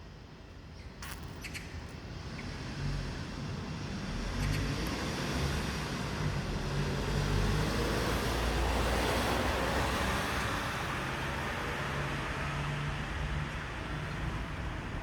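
Road traffic: a passing vehicle's rushing rumble swells over several seconds and then eases off a little. Two faint clicks come about a second in.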